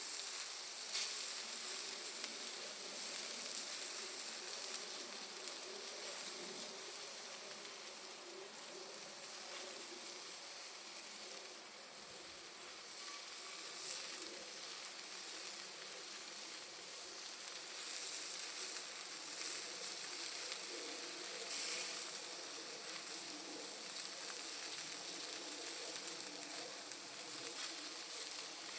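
Bonfire of firewood and Iwate cut charcoal burning with a continuous crackling hiss and sizzle, broken by sharp pops from the charcoal, the loudest about a second in.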